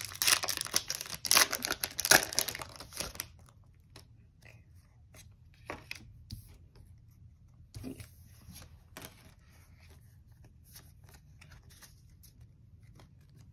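A Pokémon trading card booster pack wrapper being torn open, a loud crinkling rip lasting about three seconds. Then only faint rustles and a few soft clicks as the cards are taken out and handled.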